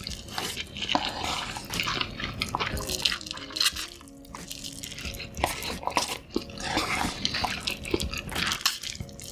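Close-miked eating sounds: wet chewing and mouth smacks, many short irregular clicks, with faint background music under them.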